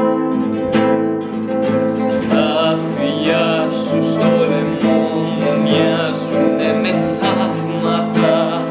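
Nylon-string classical guitar strummed in a steady rhythm, with a man singing over it through the middle.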